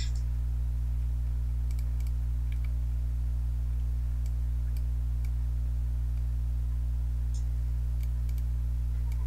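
Faint, irregular clicks of a computer mouse over a steady low hum.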